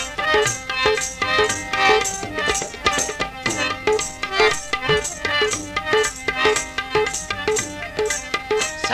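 Instrumental music from a folk-style song: a steady percussion beat of about two to three strokes a second under sustained melody notes, with no singing.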